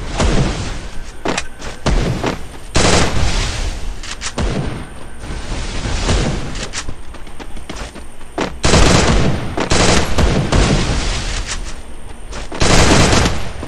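Video-game gunfire: repeated bursts of rapid shots with short pauses between them, the longest and loudest burst about two-thirds of the way through.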